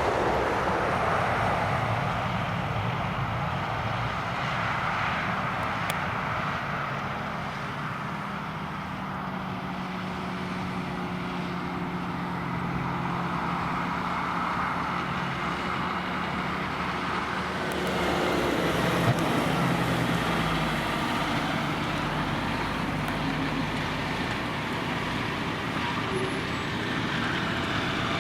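Farm tractor engines running steadily in the field, a continuous drone with a low engine hum; it grows a little louder about eighteen seconds in.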